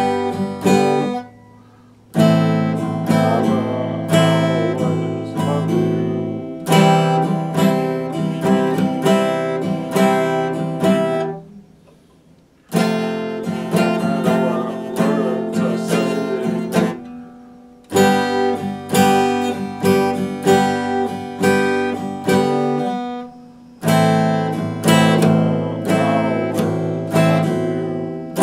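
Epiphone acoustic guitar strummed in a steady run of chords, played without singing. Twice the strumming stops briefly and a chord fades away, about a second and a half in and again about twelve seconds in.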